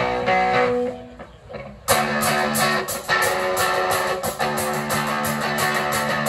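Live rock band playing: electric guitars, bass guitar and drums. A chord rings out and fades about a second in, then the full band comes back in sharply just under two seconds in with a steady beat.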